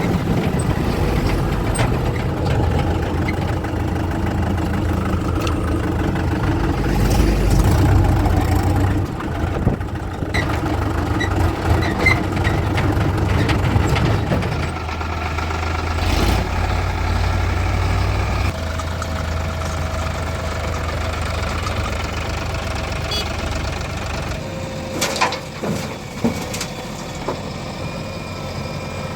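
Diesel engines of a JCB 3DX backhoe loader and tractors running, the engine note shifting a few times; several sharp knocks near the end.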